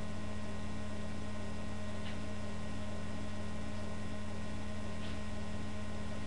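Steady electrical hum with an even hiss behind it. Two faint, brief soft sounds come about two and five seconds in.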